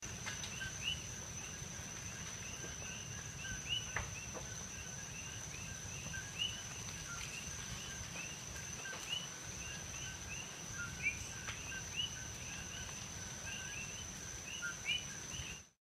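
Many coqui frogs calling their short two-note "co-qui" over and over, overlapping, above a steady high whine. A few sharp pops and crackles come from vegetation burning at a lava flow front, over a low rumble, until the sound cuts off just before the end.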